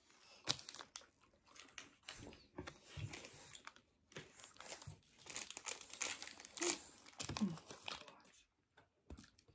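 Plastic wrapper of a Balisto chocolate biscuit bar crinkling and crackling in irregular bursts as it is handled and torn open.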